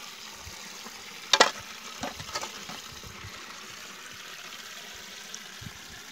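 Steady rushing of river water, with one sharp knock about a second and a half in and a few lighter knocks just after.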